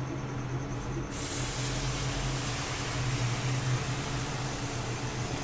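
Hot sugar syrup poured into a pan of ghee-roasted moong dal, hitting the hot ghee and breaking into a steady sizzling hiss that starts suddenly about a second in.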